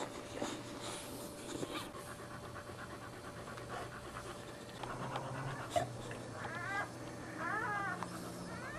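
Boxer dog panting, with short high-pitched squeaks and whimpers from her newborn puppies coming in quick groups over the last couple of seconds.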